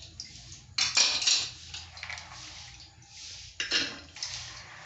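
Metal pressure cooker lid clattering as it is lifted off and set down, loudest about a second in, then soaked beans and lentils rattling into the empty metal cooker pot as they are scooped in by hand, with another clatter near the end.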